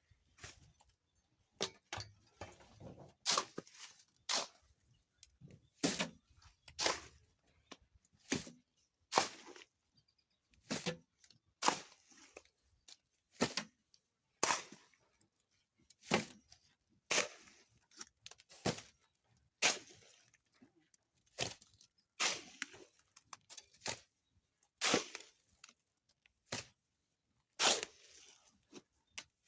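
Repeated sharp knocks of a hand tool striking a hard surface, roughly one a second with uneven spacing.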